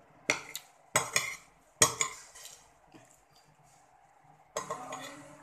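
Metal spoon scraping and clinking against a ceramic plate while scooping rice: three sharp scrapes in the first two seconds, then a longer, softer stretch near the end.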